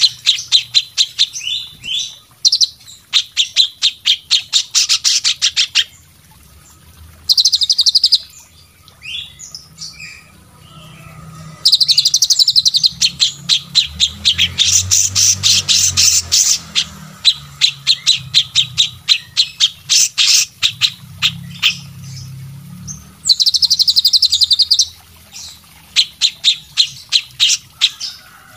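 Caged Indonesian songbirds singing from a mixed recording of cililin, cucak cungkok, kapas tembak and cucak jenggot songs. Fast runs of sharp repeated high notes come in bursts of several seconds, separated by short pauses.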